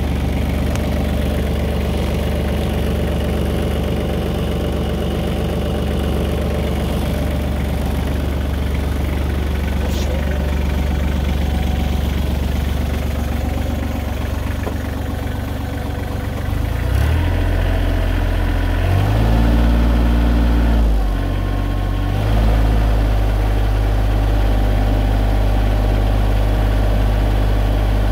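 Kubota L3010 tractor's diesel engine idling steadily and quietly, then throttled up a little over halfway through: the revs rise, climb higher for a couple of seconds, and then hold at a faster steady speed.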